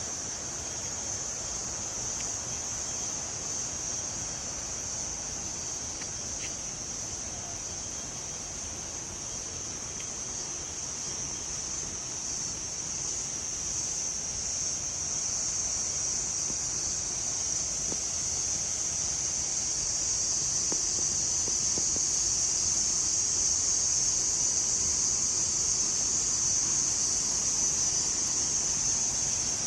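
Cricket chirping in one continuous, unbroken high-pitched trill, growing a little louder about halfway through.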